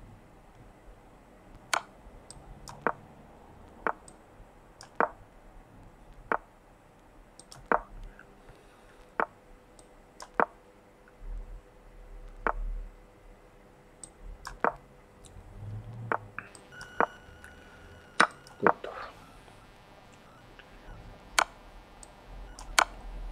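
Sharp, short clicks, roughly one a second at irregular spacing, from moves being played in a fast online blitz chess game.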